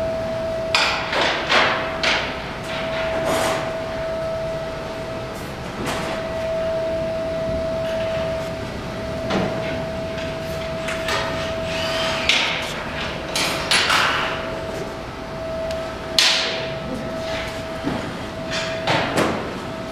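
Irregular knocks and bangs in a workshop, a dozen or so at uneven intervals, like hammering, over a steady high-pitched hum.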